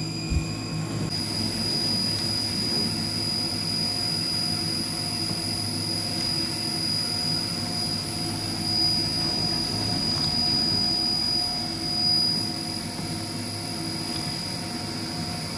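Syil X7 CNC mill running its warm-up cycle with flood coolant spraying and splashing over the table and fourth axis, the nozzle set to cleaning mode. A steady high whine runs over the spray and shifts to a new pitch about a second in, with a short knock just before.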